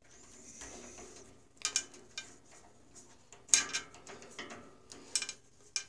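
Scattered light metallic clicks and taps of a hex key working the guide-bearing adjustment on a JET 14-inch bandsaw's upper blade guide, as the bearings are set close to the blade without touching it. The sharpest click comes about three and a half seconds in.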